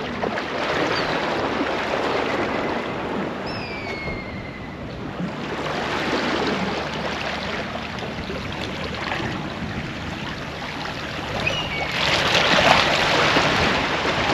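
Small waves lapping and washing over the stones of a shallow, rocky seashore, in slow swells that grow louder near the end.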